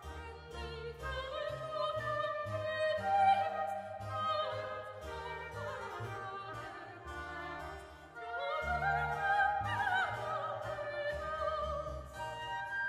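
Soprano singing an aria with vibrato, accompanied by flute, oboe, harpsichord and double bass. About two-thirds of the way through, her voice sweeps up to a high held note.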